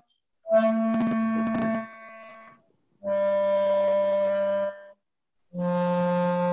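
Clarinet playing slow held notes of a descending scale, three notes each about a second and a half long, stepping down in pitch. Between the notes the player breathes in and the sound stops completely, so the air does not run continuously from note to note.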